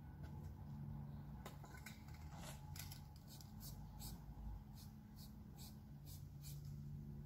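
An aerosol spray-paint can giving about a dozen short, quick hisses, starting after the first second or so, over a low steady hum.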